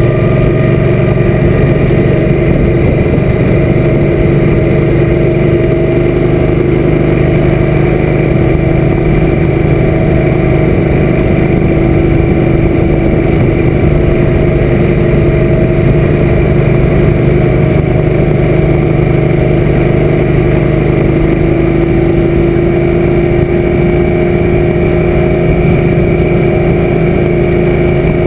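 Suzuki M800's V-twin engine running at a steady cruise, with wind rushing over the camera microphone. The engine note climbs a little in the last third.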